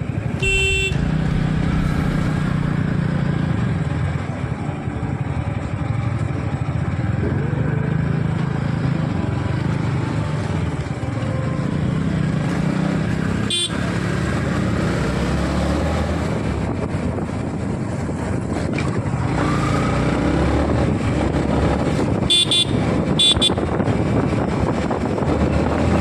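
Yamaha MT-15's single-cylinder engine running as the bike pulls away and accelerates up through the gears. A short horn beep sounds about half a second in, and two more come a little over twenty seconds in.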